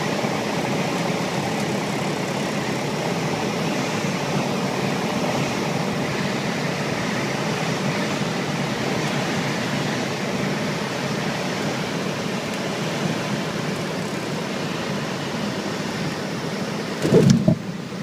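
Piper Cherokee 180's four-cylinder Lycoming engine and propeller running steadily during the landing, heard inside the cockpit along with the rush of air. A brief loud bump comes about a second before the end.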